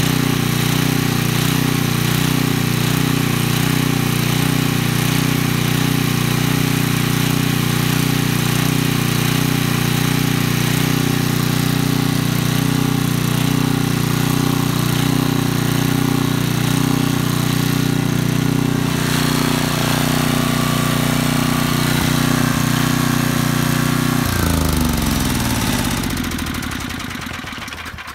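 The 10 HP Tecumseh single-cylinder engine of a DeVilbiss GT5000 generator running steadily at its governed speed. About 24 seconds in it is shut off, and its pitch falls as it coasts down to a stop near the end.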